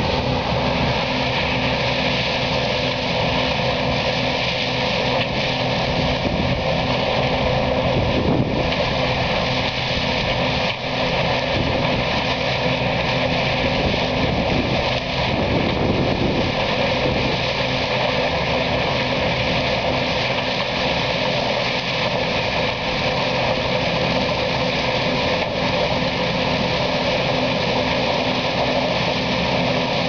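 John Deere 975 combine harvester running while it harvests corn: a steady engine and machinery drone with a constant low hum under a dense rushing noise, at an even level throughout.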